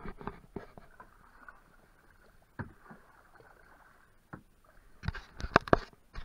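Canoe paddling: paddle strokes in the water with scattered knocks and splashes, and a quick run of louder knocks about five seconds in.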